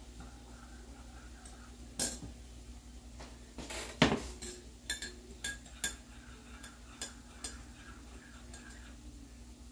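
Metal spoon clinking against a ceramic mug as tea is stirred and spooned: a string of separate light clinks, the loudest about four seconds in.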